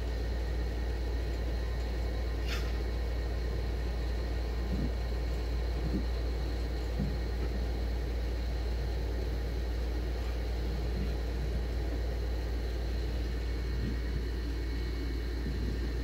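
Steady low rumble, with a short sharp click about two and a half seconds in and a few faint knocks.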